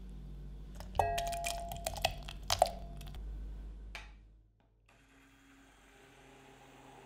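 A metal saucepan clinks several times against the rim of a glass measuring jug, and the glass rings, as hot strawberry mixture is poured over hydrated gelatin. The clinks start about a second in, and a softer sound of pouring follows. It then fades to faint room tone.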